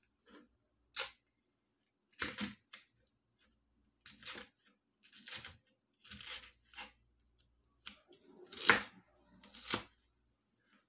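Chef's knife chopping a green pepper on a plastic cutting board: slow, uneven cuts, about one a second, each a sharp crunch and knock on the board, the loudest near the end.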